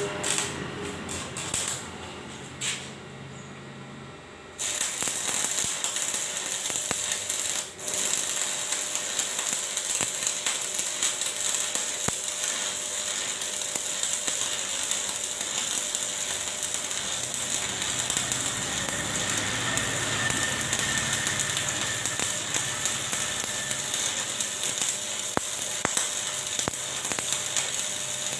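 Stick welding: a few short knocks first, then the arc is struck about four and a half seconds in and crackles and hisses steadily. It breaks off for a moment near eight seconds and catches again.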